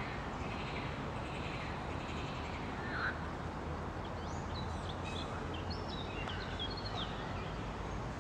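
Outdoor park ambience: a steady low background rumble with wild birds calling, faint chirps early on giving way to a busier run of rising and falling chirps from about four to seven and a half seconds in.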